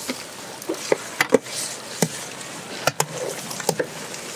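Metal ladle and spatula stirring chopped snake gourd frying in a large pan, with irregular clanks and scrapes of the utensils against the pan over a steady sizzle.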